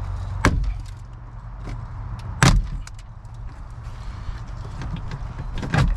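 A few sharp knocks and clicks of plastic trim and speaker parts being handled, the loudest about two and a half seconds in, over a steady low hum.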